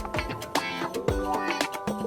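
Background music with a steady beat: a bass drum thumping about twice a second under percussion and pitched instruments.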